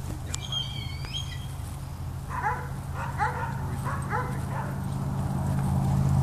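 A dog whining with a couple of high gliding notes, then yipping in a quick run of short calls about half a second apart, over a steady low hum.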